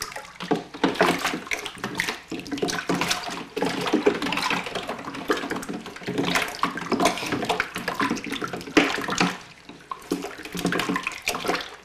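A cornmeal, sugar and hot-water mash being stirred by hand with a stick in a plastic cooler, the liquid sloshing and splashing in an irregular rhythm as the sugar is worked into solution, with a brief lull near the end.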